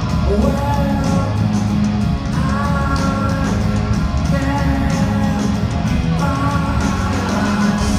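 Live rock band playing loudly through a concert PA, with electric guitar to the fore.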